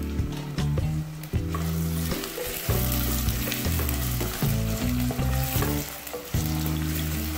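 Sliced onions sizzling in hot oil in a stainless steel pot, with the spoon clicking and scraping against the pan as they are stirred; the sizzle grows louder about a second and a half in. Background music with low notes plays underneath.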